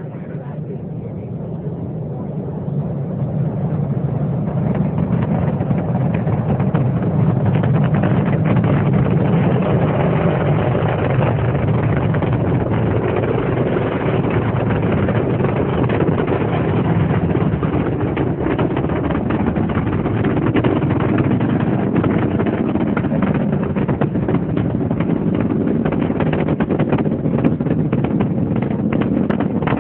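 Space shuttle launch heard from about three miles away: the two solid rocket boosters and three main engines make a deep, ragged, crackling rumble. It builds over the first several seconds as the sound arrives, then holds loud and steady.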